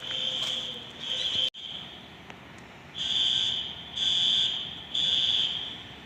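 Building fire alarm sounding a high-pitched pulsing tone in repeated groups of three pulses, the evacuation signal still going after the fire department's visit.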